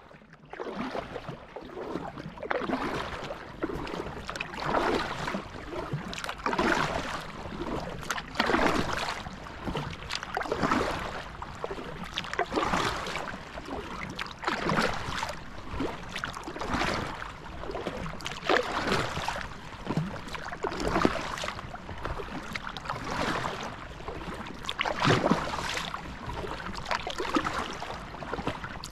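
Kayak paddle strokes: a rhythmic splash and swish of the blades through the water about every two seconds, with water lapping along the kayak's hull in between.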